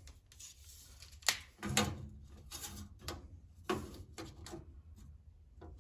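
A steel tape measure being pulled out and set against sheet metal, giving a few separate sharp clicks and clatters.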